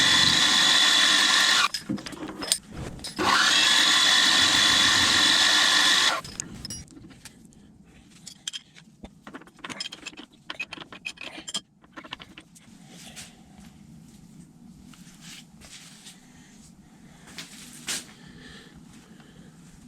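An electric power-tool motor whining in two bursts of about three seconds each, the second rising in pitch as it spins up. Then scattered small clicks and knocks of metal parts being handled.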